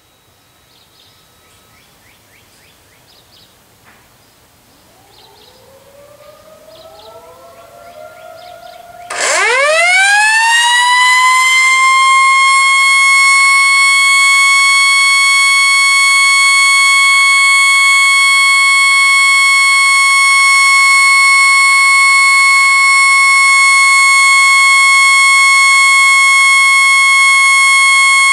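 Federal Signal Model A electromechanical siren starting up about nine seconds in, its pitch climbing quickly as the rotor spins up and then holding one steady, loud high tone.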